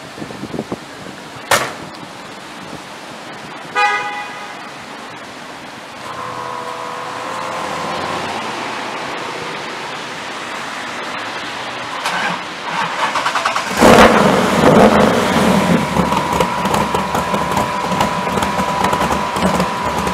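A car door shuts and a horn gives a short toot. About 14 seconds in, the Shelby GT500 Eleanor's V8 cranks and fires with a sudden loud burst, then keeps running loudly: a cold start up.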